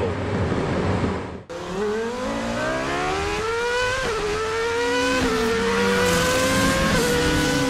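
About a second and a half of wind and road noise, then a cut to a car engine accelerating hard through the gears: its pitch climbs and drops sharply at three gear changes.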